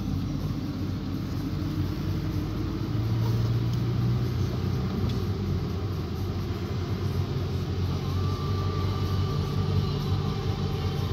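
A steady low rumble with a low hum.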